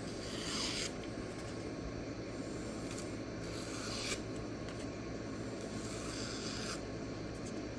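Steel knife blade drawn in slow scraping strokes a few seconds apart, the edge rasping across a fine sharpening stone or through test paper, over a steady low hum.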